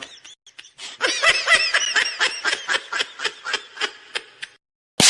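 A high-pitched snickering laugh meme sound effect: quick breathy pulses, about six a second, starting about a second in and fading out after about three and a half seconds. A sharp hit comes right at the end.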